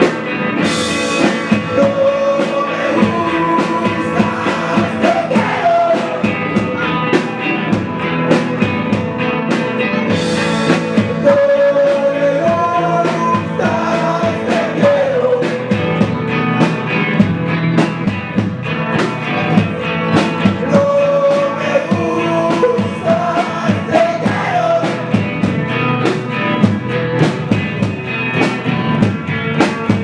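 Rock band playing: electric guitar, drum kit and a male lead singer. There are cymbal crashes about a second in and again about ten seconds in, over a steady drum beat.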